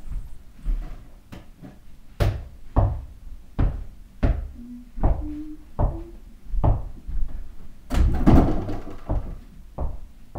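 A mini basketball bounced on the floor, thumping about once every three quarters of a second, with a louder rattling knock about eight seconds in.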